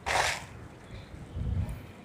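One short, harsh animal call at the start, followed about a second and a half later by a low thud.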